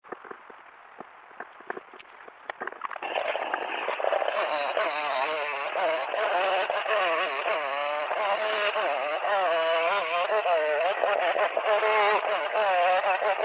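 A few faint clicks, then about three seconds in a two-stroke chainsaw starts running loudly and cutting into a wooden log, its engine pitch swinging up and down again and again as it revs through the cuts.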